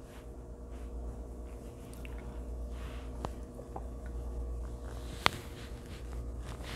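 Faint soft dabbing and brushing of a makeup brush blending concealer on the skin under a low steady hum, with a few small ticks and one sharp click about five seconds in.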